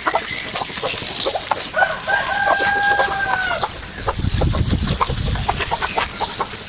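Rooster crowing once, a long held call starting about two seconds in, amid many short chicken clucks. A low rumble comes in about four seconds in.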